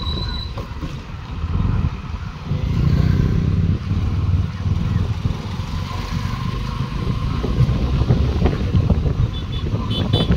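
Motorcycle engine running steadily while riding at low speed, with rumbling road and wind noise.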